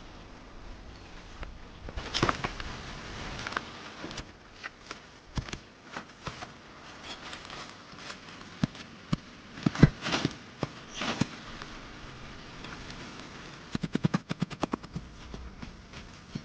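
Irregular knocks and clicks over a steady hiss, with a quick rattle of about a dozen clicks near the end.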